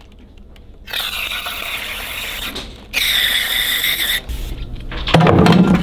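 Aerosol brake cleaner hissing out of the can in two long sprays, cleaning out a new cam plate. Loud rock music starts near the end.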